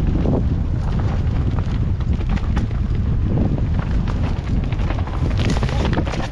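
Wind buffeting the camera microphone over the rumble of a mountain bike descending a dirt trail, with frequent sharp clicks and knocks as the bike rattles over roots and loose stones.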